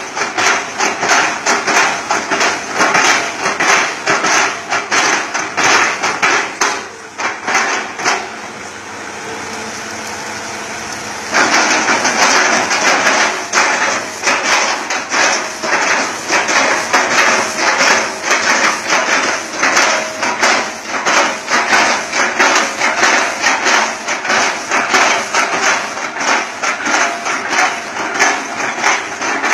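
Hitachi Zaxis 200-5G excavator working: a fast, continuous run of repeated knocks and clatter. About seven seconds in it drops for a few seconds to a steady engine hum, then the knocking resumes.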